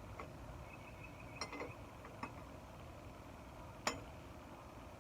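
A handful of sharp metallic clinks and taps from hand tools and wrench on the wheel hub and its large axle nut, the loudest about four seconds in.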